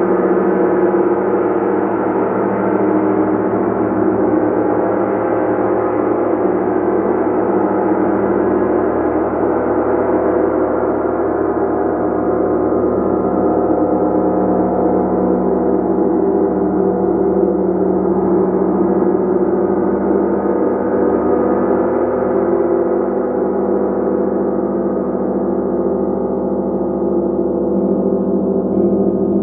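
Gong played continuously: a dense, sustained wash of many overlapping ringing tones with no separate strikes standing out. The highest overtones thin out slightly toward the end.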